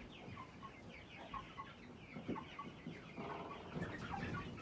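Chickens clucking softly: short, scattered quiet calls, with a low buzzy stretch of clucking about three seconds in.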